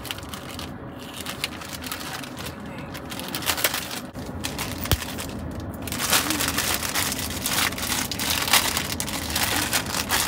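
Plastic packaging crinkling and rustling as car-seat decorations are handled and fitted, louder in the second half, with one sharp click about five seconds in.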